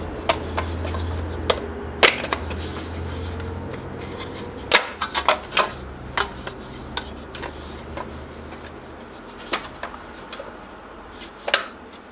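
PVC pipe being pushed and worked into the end of dust-collector duct: scattered plastic knocks and clicks with some scraping, a quick run of knocks about five seconds in and another near the end. A faint low hum fades out over the first few seconds.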